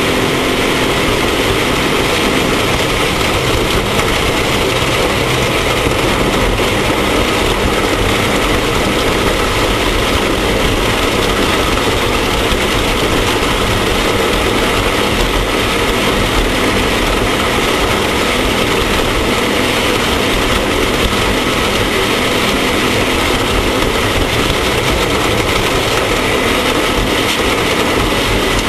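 Off-road race vehicle's engine running continuously and loudly under a dense, even rushing noise, with no let-up.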